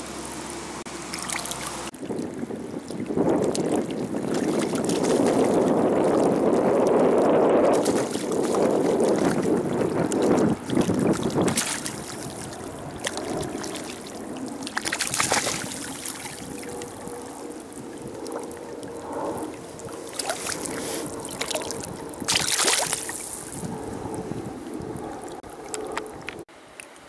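Rushing river water with wind on the microphone, loudest in the first half. A hooked trout thrashes at the surface, with sharper splashes about halfway through and again later on.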